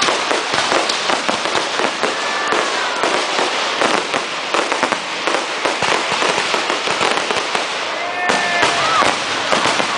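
Fireworks display: many fireworks going off at once in a dense, continuous crackle of pops and bangs.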